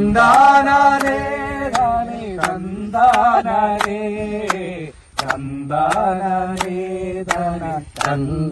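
Background Malayalam folk-style song: a voice holds long, chant-like sung notes over a steady percussion beat, with a brief break about five seconds in.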